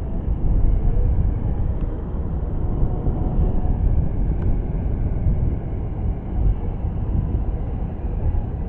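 Wind buffeting the microphone: a loud, uneven low rumble that rises and falls throughout.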